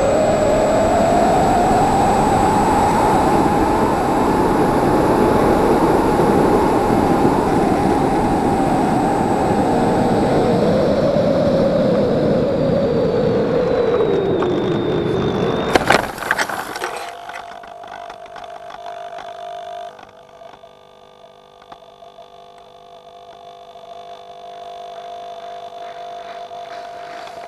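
An electric RC glider in flight, heard from its onboard camera: the motor whines over a rush of wind, its pitch rising and then slowly falling. About sixteen seconds in comes a short clatter of knocks and rustling as the plane lands in tall crop. After that only a faint steady hum remains.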